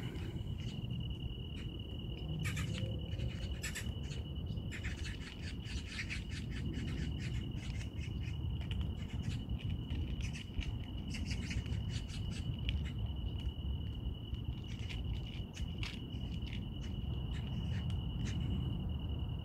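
A cat chewing and crunching its food, a rapid run of sharp little clicks that is thickest in the middle, over the continuous high-pitched trill of an insect.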